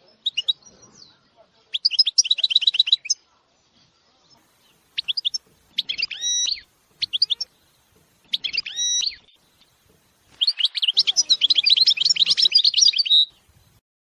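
Caged finches singing in fast trilled phrases: five bursts separated by short pauses. The last burst is the longest and loudest, about three seconds, and stops shortly before the end.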